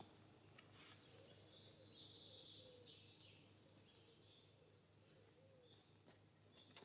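Near silence, with a few faint, high-pitched bird chirps.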